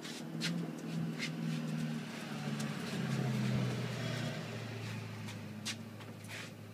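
A low, steady motor hum, like an engine running, that shifts in pitch about three seconds in, with scattered clicks and knocks over it.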